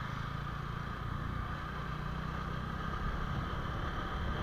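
Honda Hornet 2.0 motorcycle's single-cylinder engine running at a steady pace while riding.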